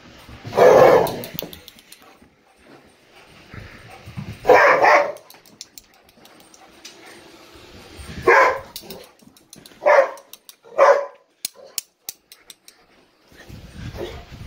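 A dog barking five times with long, uneven gaps; the last two barks come close together.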